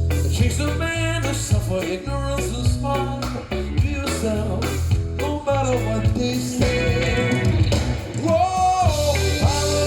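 A song with a singing voice and a strong bass line, played back over a high-end hi-fi system's loudspeakers in a room.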